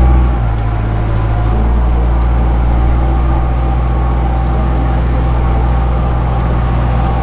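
Tour boat's engine running steadily under way, a low droning hum heard from on board; it is loudest at the start and eases slightly just after, then holds steady.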